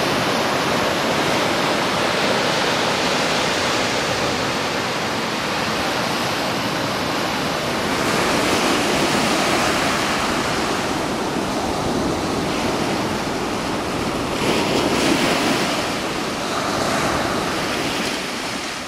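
Small surf on a sandy beach: a steady rush of waves breaking and washing up the sand, with a few louder washes in the second half.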